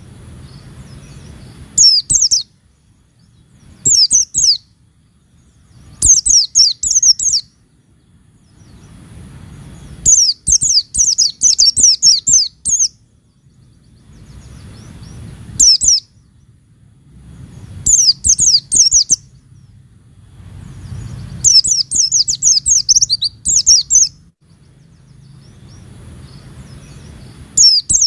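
White-eye (pleci) singing in loud bursts of rapid, high-pitched, falling chirps, about eight bursts a few seconds apart, some lasting two to three seconds; a faint low hum fills the gaps.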